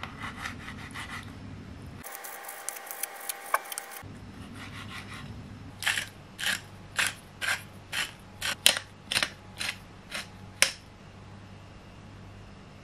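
Salt and pepper grinder being twisted over a salad: about ten short gritty grinding rasps, roughly two a second, in the second half. Fainter scraping and clicks come before them.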